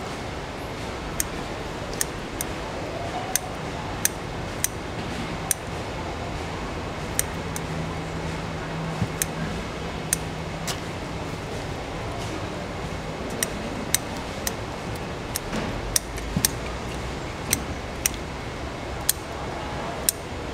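Metal kitchen shears snipping through mantis shrimp shells: sharp, crisp clicks, irregular, about one or two a second.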